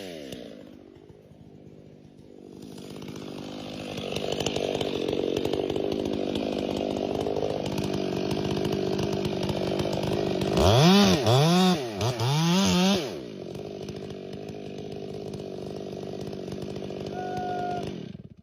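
Chainsaw engine running, low at first, then steady and louder as if working in a cut. About two-thirds through it is revved three times in quick succession, each rev rising and falling in pitch. It cuts off suddenly near the end.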